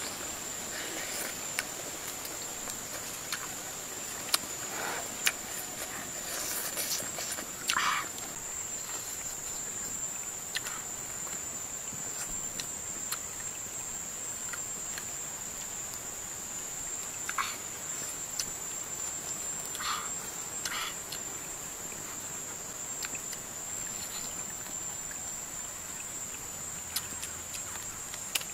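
Insects keep up one steady, high-pitched drone, with a few short clicks and chewing and smacking sounds from someone eating.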